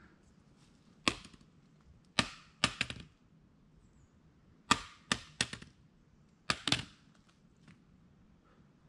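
About ten sharp cracks in four short clusters, each with a brief ringing tail, over a faint steady background.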